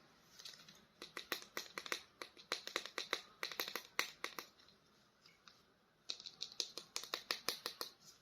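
Hard plastic clicking and rattling from handling a plastic toy: two quick runs of sharp clicks with a pause of about a second and a half between them.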